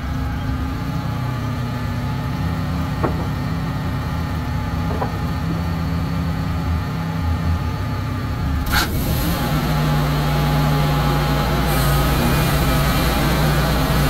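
Wood-Mizer LX150 portable band sawmill's engine running steadily. About nine seconds in there is a sharp clack, after which the engine runs louder, with a stronger, higher hiss over its hum.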